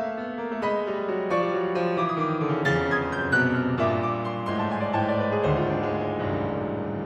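Solo grand piano playing a contemporary piece: a dense run of struck notes that grows loudest around the middle, then a low bass note about five and a half seconds in, with the chords left ringing and slowly dying away.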